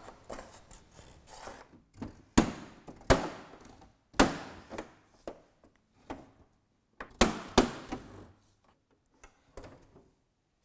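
Plastic snap-fit locking clips of a Samsung 7100-series TV's rear cover popping loose as the case is pried open with an opening tool. A series of sharp snaps and knocks, five of them loud, with fainter ticks between.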